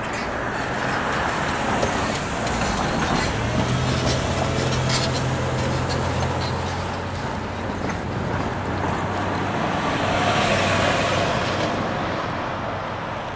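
Road traffic passing close by: an SUV towing a small utility trailer drives past, its engine hum strongest from about three to seven seconds in, over a steady wash of tyre and road noise. Another swell of passing-vehicle noise comes near the end.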